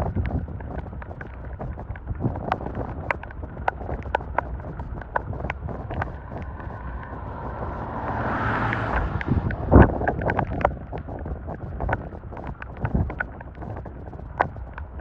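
Strong wind buffeting a phone's microphone, with many scattered sharp ticks and taps. A gust swells about eight seconds in, and a louder thump comes about ten seconds in.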